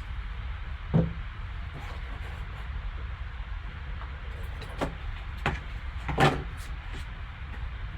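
Hands handling and opening a trading-card box on a table: a few separate knocks and clicks, the loudest one about six seconds in, over a steady low hum.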